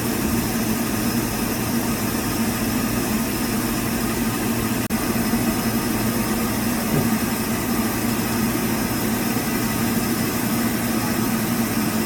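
Sawmill machinery running with a steady drone, broken by a momentary gap about five seconds in.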